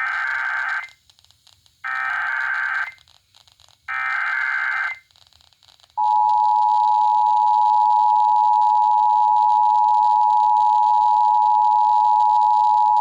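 Emergency Alert System tones received over FM radio. Three one-second bursts of SAME digital header data come about a second apart, then about six seconds in the steady two-tone EAS attention signal begins and holds. Together they announce a severe thunderstorm warning.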